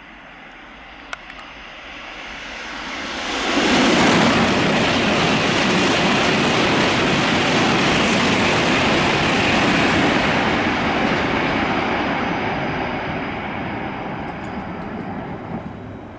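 Shinkansen bullet train passing through the station at high speed without stopping. A growing rush jumps to a loud roar about three and a half seconds in, holds for several seconds, then slowly fades away.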